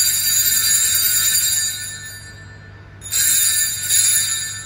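Altar bells rung at the elevation of the consecrated host. The ringing fades out about two seconds in, then is struck again twice, about three and four seconds in, and fades once more.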